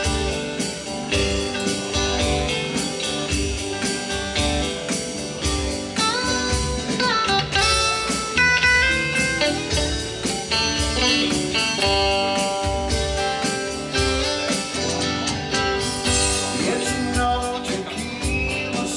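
Live band music without vocals: electric guitars, bass, drums and keyboard play an instrumental passage with a steady beat. About six to eight seconds in, a lead line slides up to bent notes.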